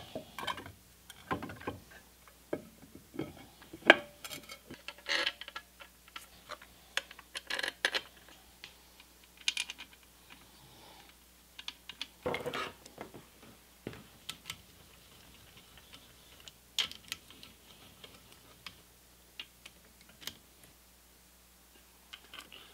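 Irregular metal clicks, clinks and knocks from hand reassembly of a GE electric motor: the end bell being seated on the motor frame and its bolts fitted. The sharpest knocks fall at the very start and about four seconds in, with a busier spell of handling around twelve seconds.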